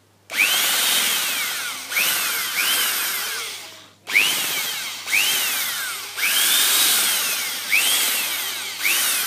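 Corded electric drill boring into a wooden board, its motor whine rising and falling in pitch over and over as the bit bites. It stops briefly about four seconds in, then starts again.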